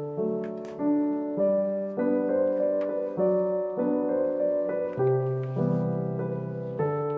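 Background piano music: a calm melody with a new note or chord struck about every half second, each one fading before the next.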